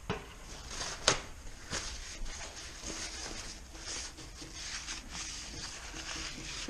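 Metal gearbox internals being handled and shifted about by hand: scraping and rustling with small clinks, and one sharp metal clink about a second in.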